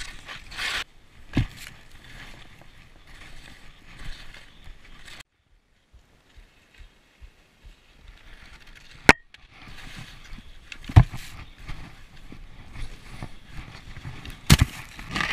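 Skis hissing and scraping over snow while skiing through trees, with a few sharp knocks from skis or poles. The hiss drops away for a few seconds in the middle, then picks up again.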